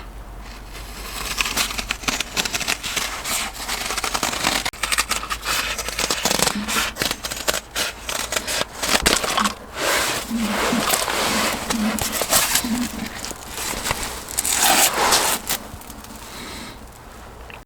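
Rustling, scraping and clicking of things being handled, busy and irregular throughout.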